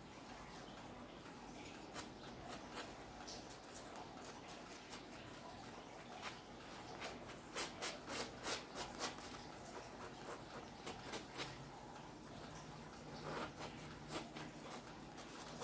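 Paintbrush working on a stretched canvas, faint: soft rubbing strokes with quick dry ticks from dabbing. The ticks come in a flurry about halfway through and again near the end.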